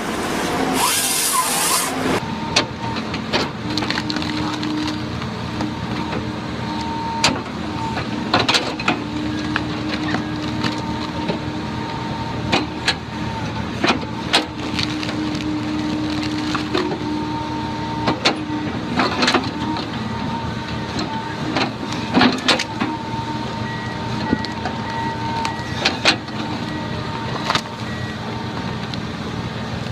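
Heavy machinery running steadily, with repeated sharp knocks and clanks throughout and a short hiss about a second in.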